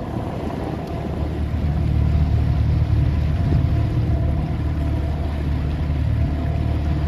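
Boat underway at sea: a steady low hum with wind and water noise over it.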